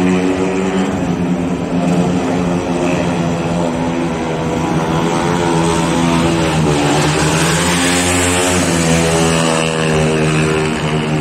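Speedway motorcycle's single-cylinder methanol engine running hard as the bike laps the shale track. About seven seconds in, the engine note dips and climbs again under a brief swell of hiss.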